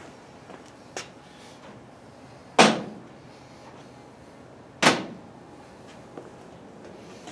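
Two sharp knocks on the pickup's wooden bed floor with its metal strips, each with a short ringing tail, about two seconds apart, after a lighter click about a second in.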